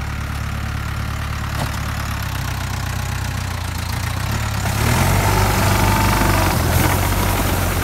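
Tractor engine running steadily, working an umbrella-type olive harvester. About five seconds in it gets louder, with a harsh, rattling noise added over the engine.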